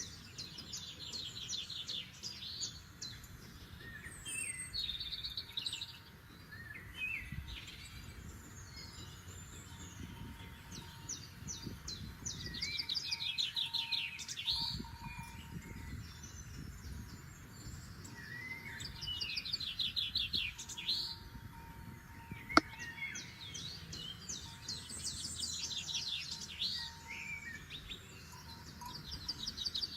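Forest songbirds singing: several birds repeat fast trilled phrases over a low rumble. A single sharp click comes about two-thirds of the way through.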